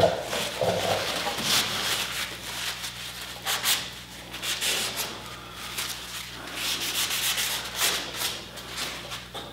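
A cloth rag wiping over a primered steel body panel, a series of irregular rubbing swishes, as the WD-40 used as cutting oil is wiped off around a freshly drilled hole.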